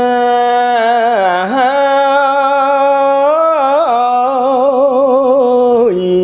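A monk's solo voice chanting Khmer smot, a Buddhist chanted poem, drawing out long melismatic vowels with vibrato and ornamental turns, and stepping down to a lower held note near the end.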